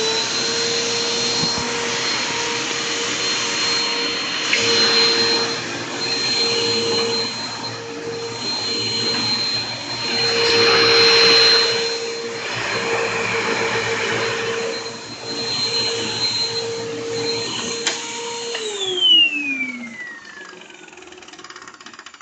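Hoover WindTunnel Pet upright vacuum cleaner running at full speed with a steady high motor whine, swelling louder and softer at times. About eighteen seconds in it is switched off, and the whine falls in pitch and fades as the motor spins down.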